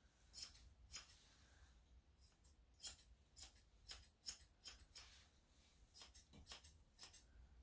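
Grooming scissors snipping through a Shih Tzu's coat: a run of quick, crisp snips at about two or three a second, with a short pause about a second in.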